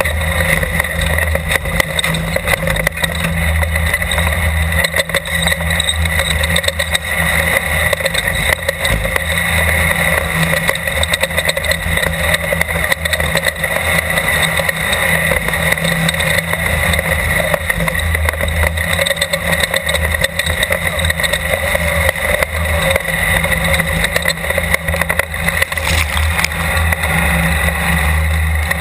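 Off-road desert race car engine running hard and steadily at speed, with constant rattling from the car over rough ground.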